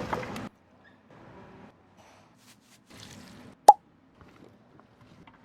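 A single short, sharp plop about three and a half seconds in, over faint scattered rustling.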